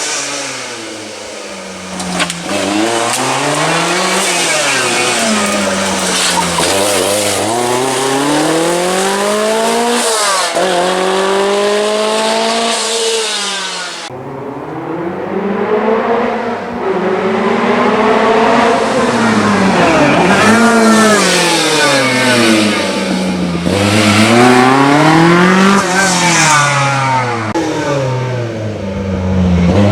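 Lancia Rally 037's supercharged four-cylinder engine revving hard through repeated gear changes, its pitch climbing and dropping every one to three seconds. About halfway through, the sound breaks off abruptly and picks up again at the same hard-driven pace.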